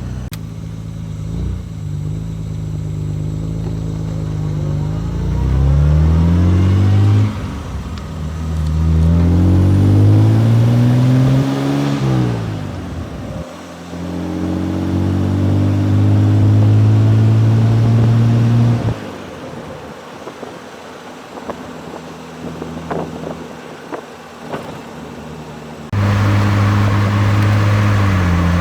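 Austin-Healey 3000 Mk III's straight-six engine running hard under acceleration: the pitch climbs twice, each climb ending in a sudden drop, then holds steady. It goes quieter with a few light ticks in the middle, and loud engine running cuts back in near the end.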